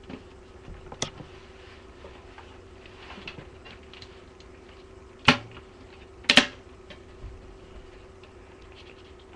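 Plastic clicks and knocks from a desktop computer case's front panel being snapped and pressed into place: a few sharp clicks, the loudest a pair about six seconds in, over a faint steady hum.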